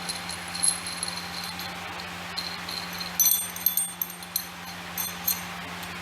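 Small metal pieces clinking and jingling, loudest and densest about three seconds in, over a steady low hum.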